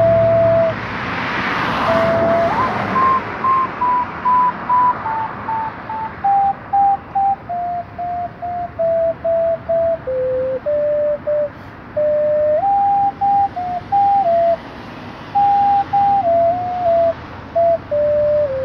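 A slow melody of single, pure whistle-like notes played on a small handheld wind instrument. It starts high, steps down note by note to its lowest point about halfway through, then rises again.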